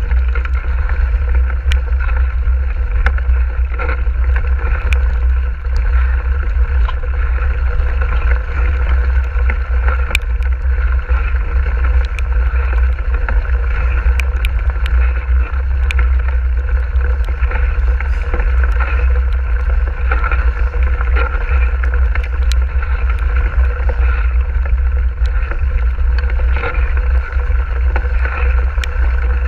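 Mountain bike riding over a wet gravel track: a steady heavy low rumble of wind and ride noise on the microphone, with tyre noise and frequent sharp clicks and rattles throughout.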